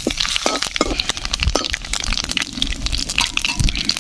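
Whole cumin seeds, dried red chillies and bay leaves crackling in hot mustard oil in an aluminium kadai, with a metal spatula scraping and clinking against the pan as the spices are stirred: the tempering of whole spices in oil.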